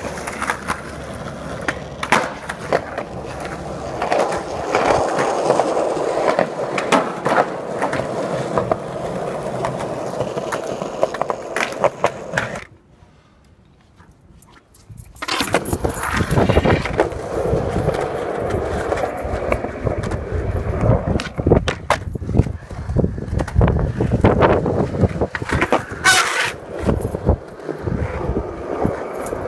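Skateboard wheels rolling on concrete, with sharp clacks of the board popping, slapping and landing. A quiet gap of a few seconds falls about halfway through.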